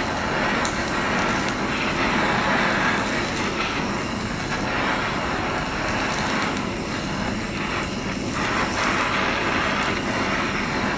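Handheld gas kitchen blowtorch burning with a steady hiss as its flame is played over the skin of a mackerel fillet to scorch it.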